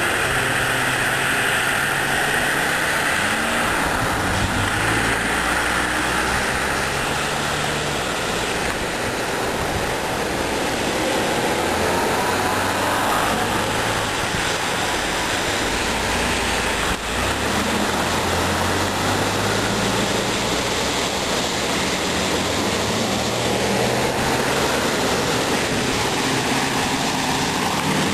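Motor vehicle engine running, its pitch rising and falling with speed, under a loud steady rushing noise.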